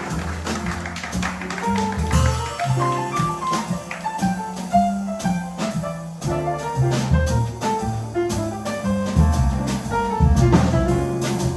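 Jazz quartet of trumpet, piano, double bass and drum kit playing live: a low bass line moving note to note under quicker melodic notes, with frequent cymbal strokes keeping time.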